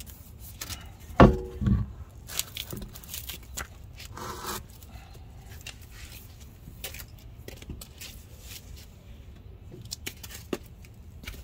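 Hands-on work on a car's front wheel as it comes off: two heavy clunks about a second in, then a short scrape and scattered metallic clicks and knocks.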